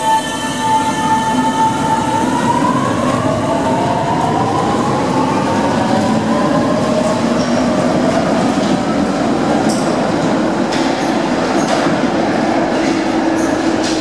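Paris Métro train pulling out of the platform. The traction motors give a whine that rises in pitch over the first few seconds, over a steady rumble of wheels on rail, with a run of wheel clicks in the second half.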